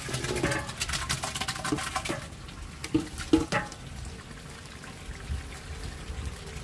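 Ginger paste tipped from a metal bowl into a large brass cooking pot of boiling garlic. It sizzles and crackles hard for the first two seconds, then settles to a steady bubbling, with two short knocks about three seconds in.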